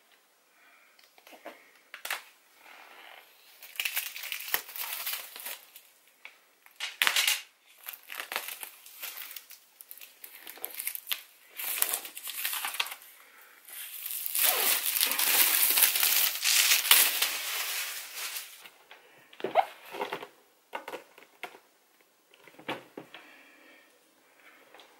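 Clear plastic shrink wrap being peeled and pulled off a MacBook Pro's cardboard box, crinkling and crackling in irregular bursts, with the longest, loudest stretch of crinkling a little past halfway.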